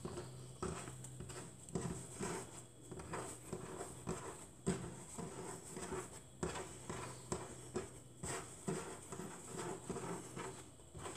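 Hands pressing and stretching a ring of soft wholemeal sourdough to widen its central hole: faint, irregular soft pats and dabs of fingers on the dough and countertop, several a second.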